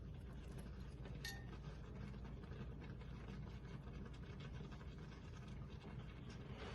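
Faint crackling of whole cloves and cardamom pods frying in ghee on low heat, small scattered ticks over a steady low hum.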